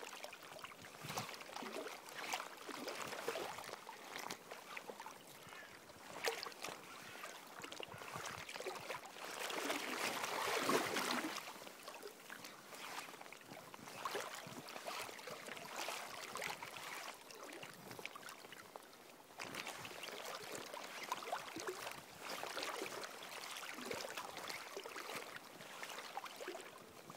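River water splashing and lapping close to the microphone in irregular surges, loudest for a couple of seconds about ten seconds in.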